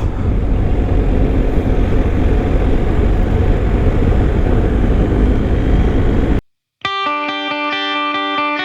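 Steady wind rush and engine drone from a BMW R1250 boxer-twin motorcycle on the move, heard on the bike-mounted camera, with deep rumbling noise. It cuts off abruptly about six seconds in, and after a short silence distorted electric-guitar background music starts.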